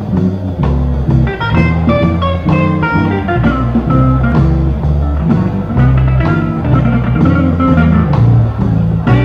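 Blues band recording: guitar playing short single-note phrases over a moving bass line and drums.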